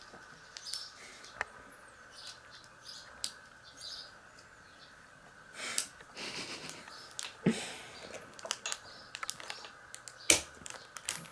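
Small knife blade scraping and clicking against an iPod Nano 5G's casing as it is pried at: scattered light ticks and short scrapes, with a few sharper clicks in the last few seconds.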